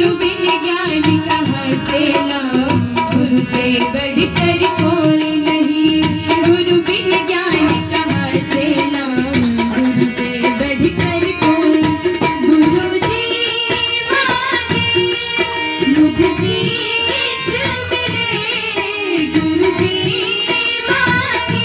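A woman singing a devotional Ramayan bhajan in folk style, accompanied by a harmonium's held reed tones and hand-drum beats.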